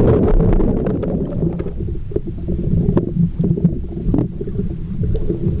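Muffled underwater sound of a camera held under the water of a swimming pool: a dull low rumble and churning of water, with a few sharper pops about three and four seconds in.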